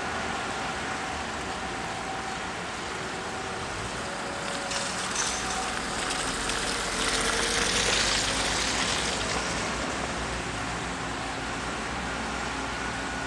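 Steady outdoor noise of distant engines and traffic around a construction site, with a few faint steady whines. It swells and brightens for a few seconds midway, as if a vehicle passes.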